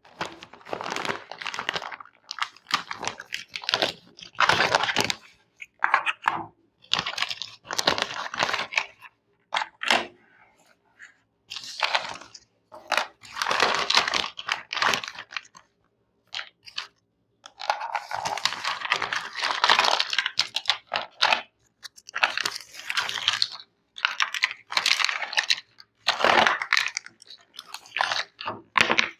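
Toy packaging being handled, crinkled and torn open, in irregular bursts with short pauses between them.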